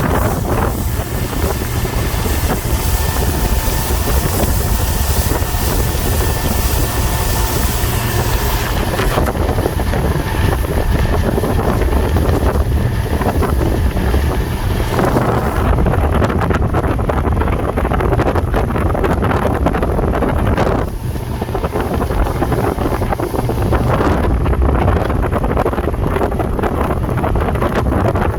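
Heavy wind buffeting on the microphone over a motorboat's engine running at speed, with a faint steady engine whine through the first half.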